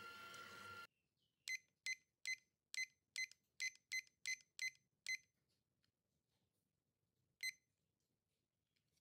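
A stand mixer's motor runs for under a second, then stops. A digital kitchen timer then beeps ten times in quick succession as it is set to ten minutes, and beeps once more a couple of seconds later as the countdown is started.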